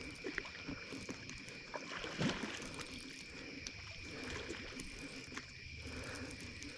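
Baitcasting reel being cranked while a fish is fought in, with faint irregular clicks and handling noise. A steady high insect trill runs underneath.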